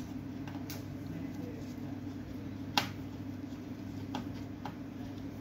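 Light clicks and taps of hands and a screwdriver working at the power-supply board of an opened HP LaserJet 1020 printer, with one sharp click about three seconds in, over a steady low hum.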